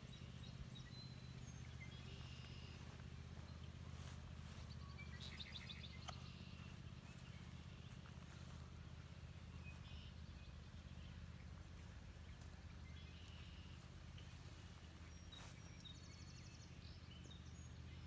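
Faint songbirds calling: scattered short chirps, with a rapid trill about five seconds in and another near the end. A steady low hum lies under them throughout.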